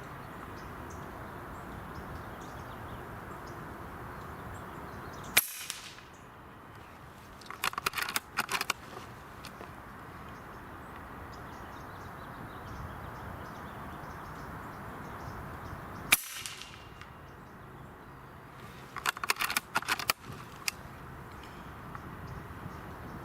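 Two air rifle shots about eleven seconds apart, each a single sharp crack. A couple of seconds after each shot comes a quick run of clicks as the action is cycled to load the next pellet. A steady rush of wind runs underneath.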